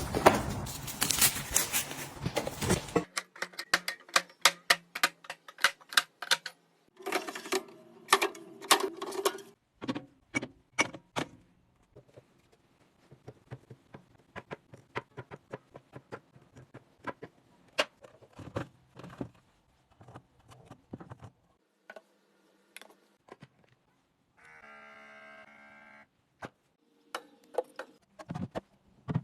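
Household items being handled and set down: a long run of light clicks, taps and knocks. A short steady hum runs near the end.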